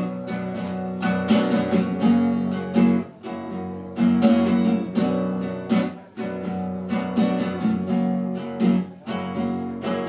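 Acoustic guitar playing a strummed instrumental introduction: rhythmic chord strokes over a steady bass, with brief pauses between phrases.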